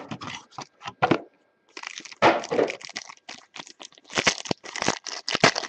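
Packaging of a sealed box of baseball trading cards being torn open and handled. The crackling, crinkling wrapper and cardboard come in irregular bursts.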